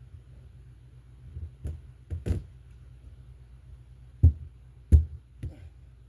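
Seven irregular knocks and thumps, the two loudest about four and five seconds in.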